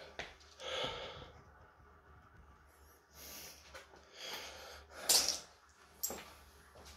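A lifter breathing hard between heavy barbell squat sets, in separate forceful, noisy breaths about a second or so apart, the loudest about five seconds in.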